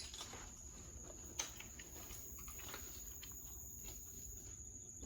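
Steady high-pitched insect drone, with faint scattered scuffs and ticks of footsteps on debris and one sharper tick about a second and a half in.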